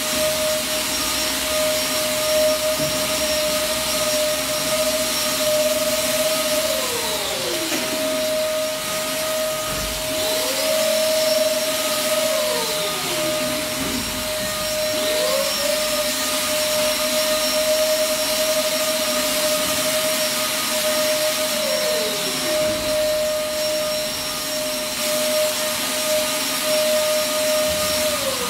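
Handheld electric fogger's motor running with a steady high whine. Several times a second pitch slides down and climbs back, as a motor winds down and spins up again.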